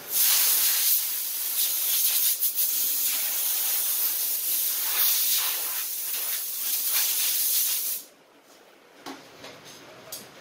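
Compressed-air blow gun with a long nozzle hissing as it blows dust out of a foam air-cleaner pre-filter from a lawn tractor. The blast wavers as the stream plays over the foam and cuts off sharply about eight seconds in, followed by a few light knocks.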